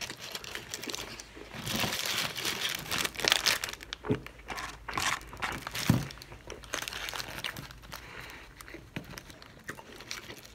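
Paper fast-food packaging crinkling and rustling in irregular bursts while food is handled and eaten, with a few sharp clicks; busiest in the first half.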